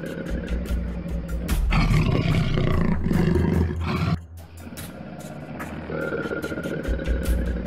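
A jaguar's deep, rough roar lasting about two and a half seconds and cutting off suddenly, over dramatic background music with a steady beat.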